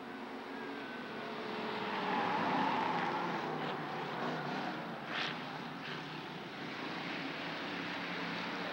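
Hobby stock race cars' engines running as the pack passes close by through a turn. The sound swells to its loudest about two to three seconds in, then settles into a steady drone. There are a few brief sharp noises about five seconds in.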